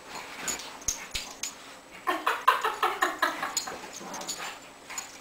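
Two Shih Tzus play-wrestling, giving a quick run of short, pitched yips and growls about two seconds in, after a few soft scuffling clicks.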